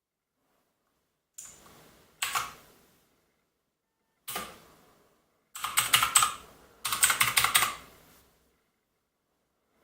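Clicky blue switches of an AUKEY mechanical keyboard being pressed: a few separate key presses, then two quick runs of rapid clicking past the middle.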